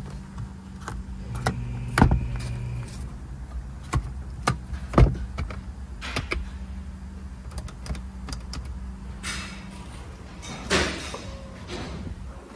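Inside a 2019 Ford Explorer's cabin: sharp clicks of overhead-console switches being pressed and a small electric motor running briefly for about a second and a half, over a steady low hum. A handling rustle comes near the end.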